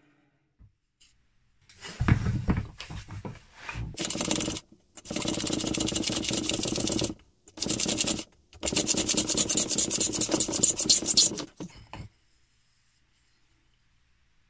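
Backsaw cutting through a thin beech strip by hand. A few short, uneven strokes start the cut, then steady rasping strokes follow, and the sawing stops about twelve seconds in.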